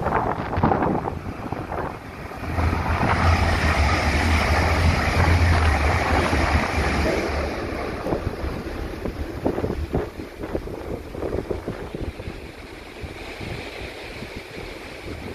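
Passenger train passing through the station and pulling away: a rising rush and low rumble that peaks in the middle, then fades slowly as the train draws off down the line. Wind buffets the microphone throughout.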